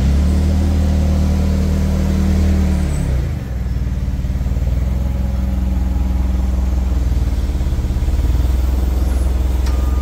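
G25E forklift's engine running under throttle, easing off about three seconds in, then running steadily as the forklift carries a pallet load.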